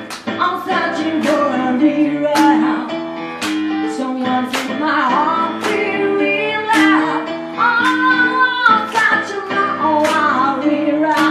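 A woman singing into a microphone over held electronic keyboard chords, with a steady beat of sharp percussive clicks running through it.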